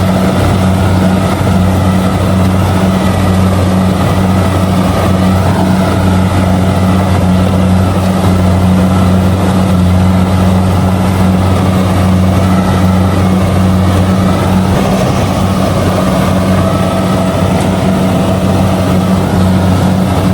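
Kubota DC-70G combine harvester's diesel engine running steadily at working speed while harvesting rice, a constant low drone with mechanical noise over it.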